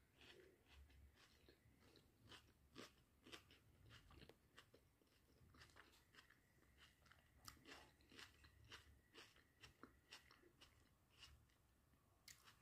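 Faint chewing of a toasted sandwich: many small, irregular crunches and clicks.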